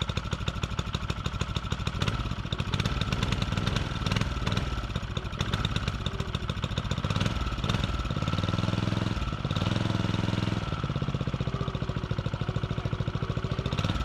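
Small single-cylinder petrol engine of a vibrating plate compactor running with a rapid, even beat. Between about 8 and 11 seconds in its note shifts and the low hum grows stronger.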